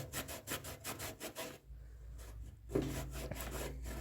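Quick scrubbing strokes, about five a second, cleaning dirt off a freshly soldered joint on a tractor radiator. The strokes pause for about a second partway through, then start again.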